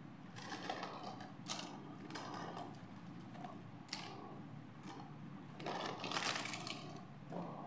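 Small plastic doll accessories (combs, hairbrushes, hand mirrors) clicking and clattering against each other as a handful is picked up and dropped onto a pile, with a louder clatter about six seconds in.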